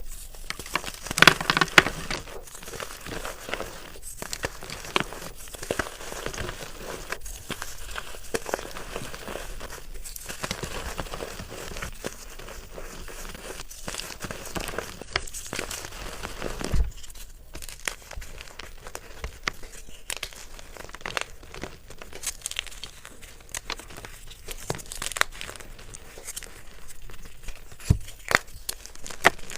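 A soft, crumbly material being squeezed and crushed close to the microphone: continuous crinkling and crackling with scattered sharper crunches, loudest in a flurry in the first couple of seconds.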